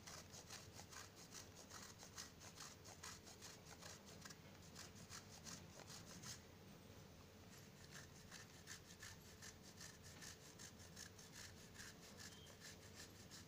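A block of chocolate grated on a handheld metal grater: faint, quick, repeated rasping strokes.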